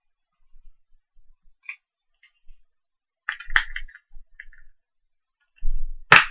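Small hard clicks and taps from a guitar pick and pry tools worked against the edge of a heated Samsung Galaxy S5's screen. A quick cluster of clicks comes about three and a half seconds in, and a sharp snap near the end.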